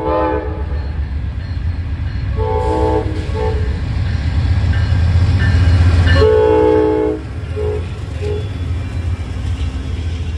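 Amtrak GE Genesis diesel locomotive sounding its horn in several blasts as it approaches the crossing, the longest about six seconds in, followed by two faint short toots. The low diesel rumble grows loudest as the locomotive passes close, then the Superliner passenger cars roll by.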